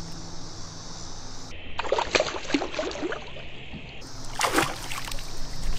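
Water splashing and sloshing at the boat's side as a smallmouth bass is let go from the hand into the river and swims off, with a sharper splash about four and a half seconds in.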